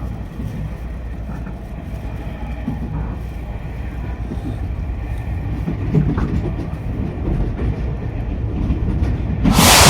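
Tobu commuter electric train running on the rails with a steady low rumble. A sudden loud hiss starts near the end and fades slowly.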